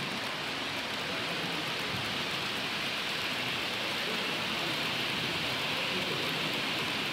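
Model trains running on a layout's track, a steady rolling hiss that swells slightly as the long rake of coaches passes.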